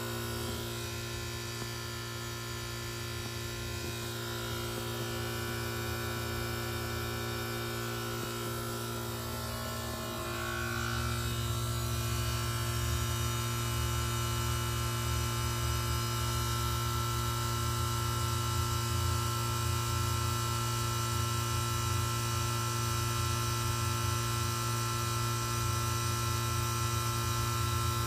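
Reciprocating compressor of a Goodman GSZ13 heat pump humming steadily through a defrost cycle. About ten seconds in there is a brief rising tone and the sound grows louder, as the defrost ends and the outdoor fan comes back on.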